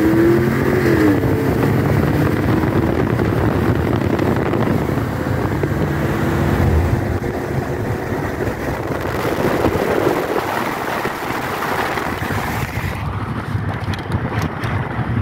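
Pickup truck V8 engine at full throttle in a drag race, heard from inside the cab. In the first second the revs climb, then drop as it shifts. After that it runs hard at speed, mixed with wind and road noise.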